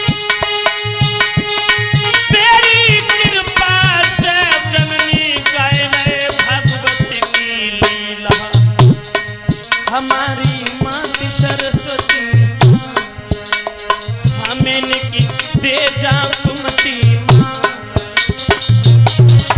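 Live Indian devotional folk music: a man sings long, wavering held notes over a harmonium, with a dholak hand drum playing a steady beat with deep bass strokes.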